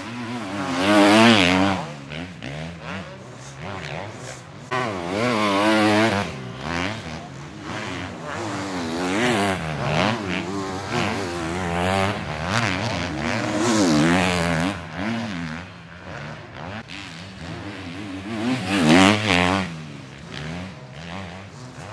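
250cc four-stroke motocross bikes revving hard as they pass one after another, the engine pitch rising and falling with each throttle opening and gear change. About five bikes go by, the loudest about a second in and again near the end.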